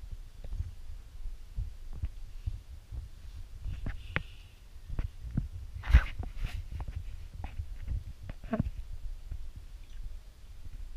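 Wind buffeting the microphone in a low rumble with irregular thumps. A few sharp knocks from the camera being handled come through it, the loudest about six seconds in.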